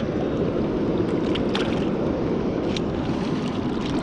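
Steady rush of fast-moving river water below a dam, with a few faint clicks over it.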